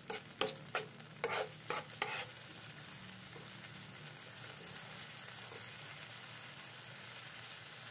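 Spatula stirring sliced onions sautéing in sauce in a frying pan. It knocks and scrapes against the pan several times in the first two seconds, then the onions and sauce sizzle steadily.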